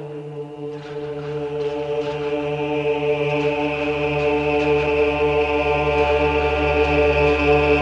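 Film score music: a sustained chant-like drone of held notes. A deep low note enters about a second in, and the whole swells steadily louder.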